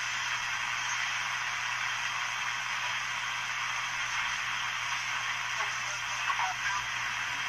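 Hallicrafters S-38 shortwave receiver putting out steady static hiss over a low hum as its tuning knob is turned between stations, with a few faint brief chirps near the end.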